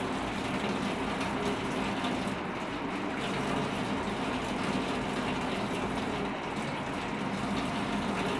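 Kitchen tap running in a steady stream, with a low steady hum beneath it.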